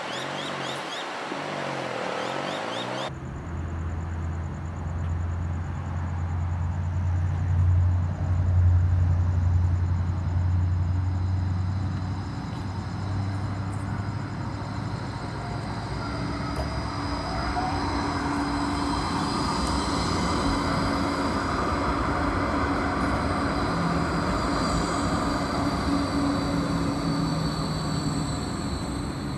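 Electric light rail tram approaching and running past a platform: a low hum, then a growing rumble of wheels on rail with a thin, high electric whine from the drive.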